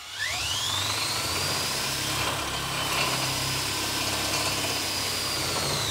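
DeWALT DCD999 FlexVolt Advantage drill, running in high gear on a 5 Ah PowerStack battery, spinning against a disc-brake dyno as the brake loads it for a torque reading. The motor whine rises as it spins up in the first second or so, holds steady under load, then falls away near the end as it winds down.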